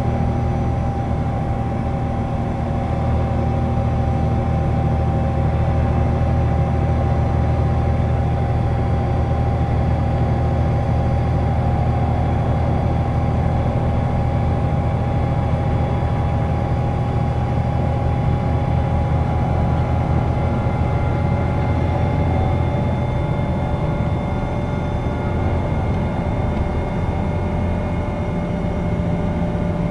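Cabin sound of an Iveco Crossway 14.5 LE bus with a Voith automatic gearbox cruising at steady highway speed: a low engine drone with road and tyre noise, and thin steady whines that drift slightly lower.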